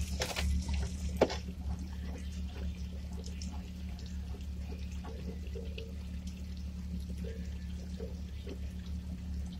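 A Jeep's engine idling with a steady low hum while it sits deep in water, with water trickling and lapping around it. There is a sharp knock about a second in.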